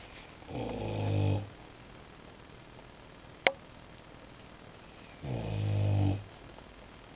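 Boxer dog snoring in its sleep: two long, low snores about four and a half seconds apart, each growing louder, with a single sharp click between them.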